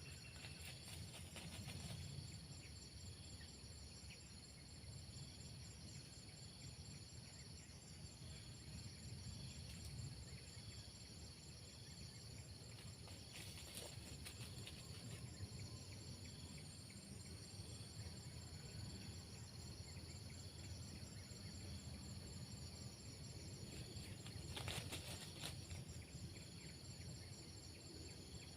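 Faint outdoor ambience with a steady high insect trill and a low background rumble.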